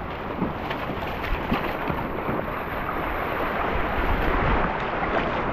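Shallow sea water washing and lapping over a rocky shore, with wind buffeting the microphone as a low rumble; the rush slowly grows louder.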